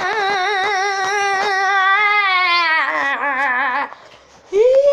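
A high voice singing one long held note with a wide vibrato, gliding down in pitch about three seconds in and breaking off just before four seconds; a higher sung note starts near the end.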